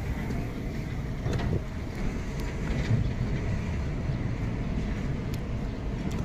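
Wind buffeting the microphone, a low irregular rumble, with a few faint ticks.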